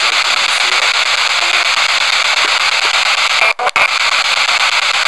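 P-SB7 spirit box sweeping through radio stations over an external speaker: a steady loud static hiss that cuts out twice for an instant about three and a half seconds in.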